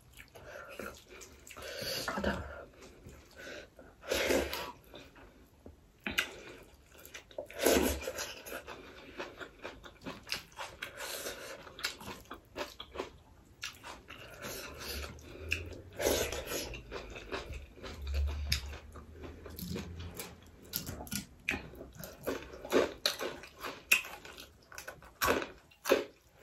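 Close-up eating sounds: red lentil dal being mixed into rice by hand, with chewing and mouth clicks in irregular short bursts.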